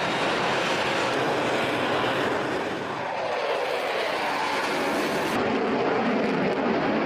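Fighter jet engine roar as the aircraft passes, with a swirling, sweeping change in tone in the middle.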